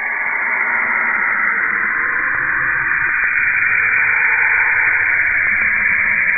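Saturn's radio emissions converted into audio, heard as a steady, static-like hiss, with a faint low rumble coming in about two and a half seconds in.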